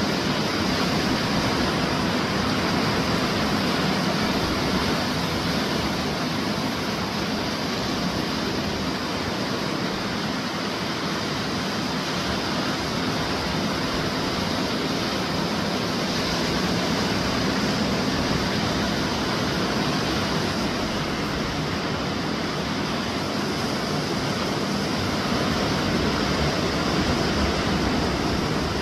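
Steady wash of small waves breaking on a sandy beach, rising and falling gently in loudness.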